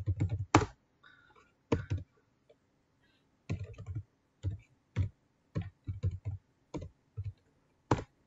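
Typing on a computer keyboard: irregular keystrokes, some in quick clusters, with short pauses between them.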